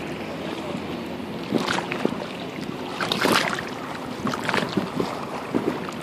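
Small sea waves lapping and splashing against a stone seawall: a steady wash of water broken by a few louder splashes, the biggest about three seconds in.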